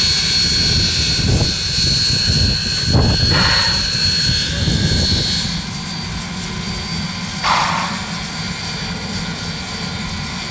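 1909 steam locomotive A 428 standing in steam with a steady hiss while it is turned on a hand-pushed turntable. A low rumble runs underneath, with a few low knocks from the turntable and a couple of brief rushes of steam.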